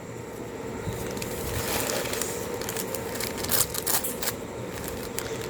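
Paper wrapping crinkling as a small gift packet is unwrapped by hand, with sharp crackles about two seconds in and again around four seconds in.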